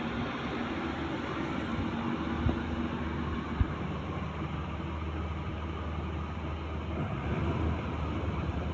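Maxxi Bimo 102 rice combine harvester running steadily, its low engine hum and machinery noise continuous, with a couple of sharp knocks a few seconds in.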